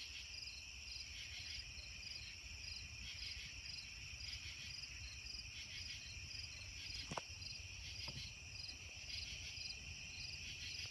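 Steady, evenly pulsing insect chorus over a low, faint rumble from a distant CSX freight train.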